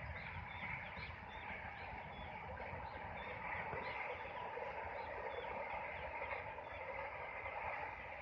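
A small bird chirping over and over, about two short notes a second, over a steady low rumble and hiss of open-air background.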